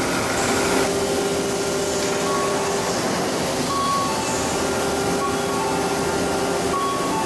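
Vertical machining center milling a 45° chamfer into the edge of a steel plate with a 50 mm chamfer cutter spinning at 1000 rpm: a steady machining noise with a constant hum.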